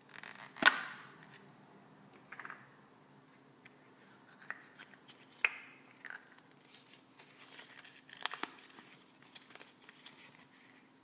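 Yellow plastic Kinder Surprise capsule snapping open with one sharp click a little under a second in, followed by scattered small plastic clicks and the crinkle of a rolled paper leaflet being handled and unrolled.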